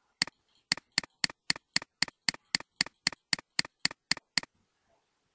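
Computer mouse button clicked rapidly and repeatedly on a scrollbar arrow: about sixteen sharp clicks, roughly four a second, stopping after about four seconds.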